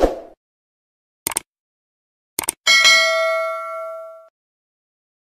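Subscribe-button animation sound effects: a short soft thump, two quick double clicks, then a bright bell ding that rings out for about a second and a half.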